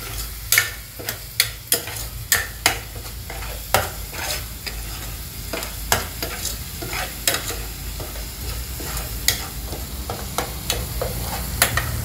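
Metal spoon stirring and scraping a spiced onion-tomato masala frying in oil in a pan, with frequent irregular clicks of the spoon against the pan over a steady sizzle.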